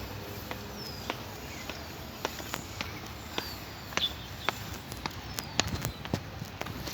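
Footsteps walking on a path, irregular crisp steps that grow louder near the end, with a few brief high chirping bird calls now and then.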